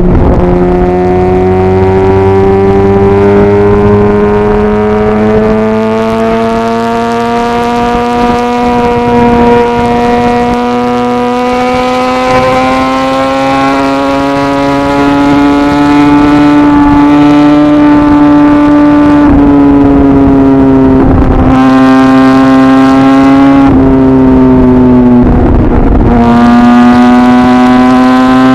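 Kawasaki ZX-10R sportbike's inline-four engine running under way, its note climbing slowly and steadily over most of the stretch. In the last third the note breaks off briefly three times and then picks up again.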